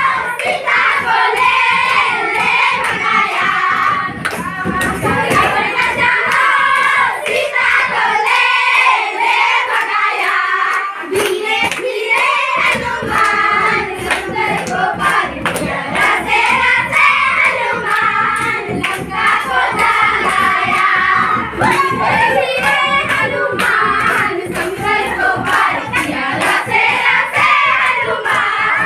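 A group of girls singing a folk song together, keeping time with a two-headed hand drum and hand clapping. The low drum tones drop out for a few seconds near the middle while the singing and beat carry on.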